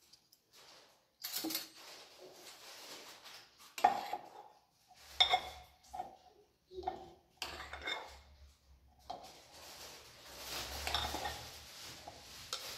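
Crockery and utensils being handled on a kitchen counter: irregular clinks and knocks of dishes and spoons, with some scraping and shuffling about three-quarters of the way through.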